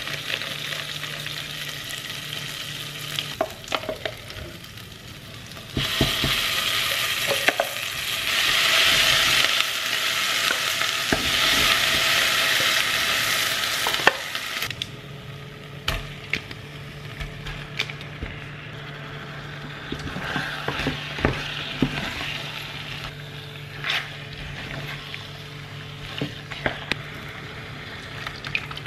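Rendang spice paste frying in oil in a stainless steel pot, sizzling, with a louder, denser sizzle from about six to fourteen seconds in. A spoon clicks and scrapes against the pot now and then as it is stirred.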